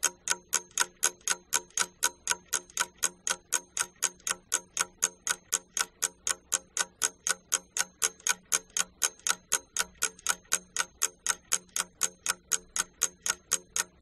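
Ticking clock sound effect, a fast, even tick about four times a second, used as a thinking-time countdown after a question; it stops just before the end.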